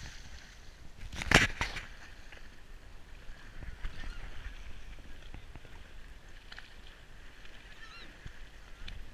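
Horse hooves wading and splashing through shallow marsh water, with a couple of louder splashes about a second and a half in.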